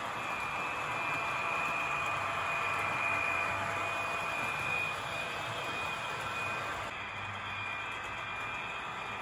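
Battery-powered HO-scale model train running on the track: a steady whine from the locomotive's small electric motor over rolling-wheel noise, loudest as the locomotive passes close by about three to four seconds in, then easing off.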